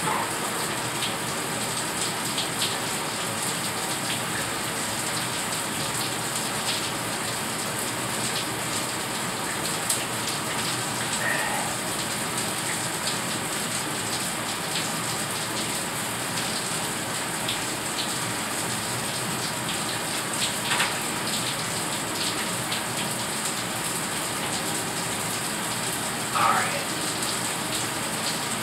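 Water running steadily from a bathtub tap and splashing in the tub.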